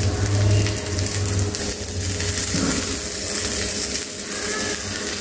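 Bread omelette frying in oil in a nonstick pan over a low flame: a steady sizzle, with metal turner and silicone spatula pressing and scraping against the pan.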